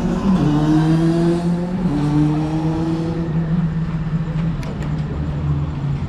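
A motor vehicle engine accelerating on the road, its pitch rising, dropping at a gear change about two seconds in, then rising again, over steady traffic noise.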